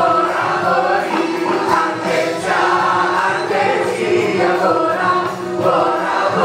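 A song performed live on stage by a female singer and male singers together, over a full backing band.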